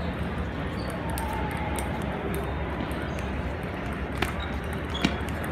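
Table tennis ball clicking sharply off paddles and the table in a rally, the clearest hits near the end, over the steady background noise of a large hall.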